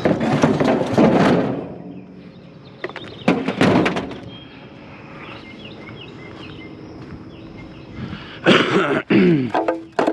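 Thunks and scraping from handling scrap items, in three clusters: at the start, about three seconds in, and again near the end, where a short scrape falls in pitch.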